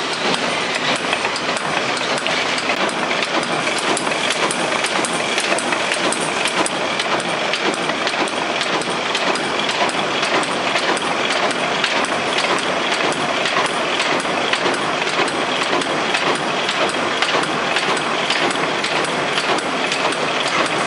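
Automatic spiral-binding hole-punching machine running, with a steady, rapid clatter of punch strokes.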